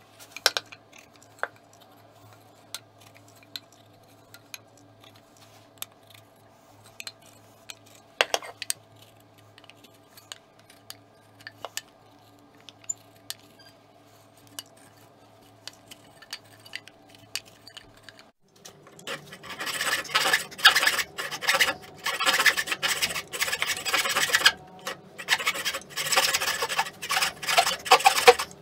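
Scattered light ticks and scrapes as a wheel marking gauge scores shoulder lines into quarter-sawn oak, over a faint hum. About two-thirds of the way in, a backsaw starts rasping through the oak in quick back-and-forth strokes, about two a second with short pauses.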